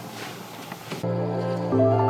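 Soft ambient background music comes in suddenly halfway through, held low notes that shift to a new chord near the end. Before it there is only faint room noise.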